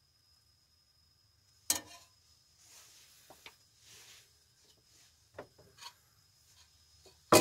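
Metal spatula clanking and scraping in a stainless-steel skillet: a sharp clank about two seconds in, soft scraping and a few light ticks, then a loud clank near the end.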